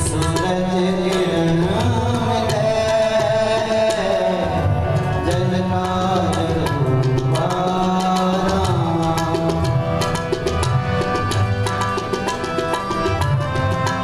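Sikh kirtan: two hand harmoniums playing held chords and melody, with tabla keeping a steady rhythm of sharp strokes and deep, pitch-bending bass-drum notes.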